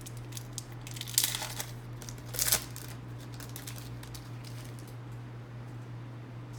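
A trading-card pack wrapper crinkling and tearing open, loudest in two short bursts about a second and two and a half seconds in, over a steady low hum.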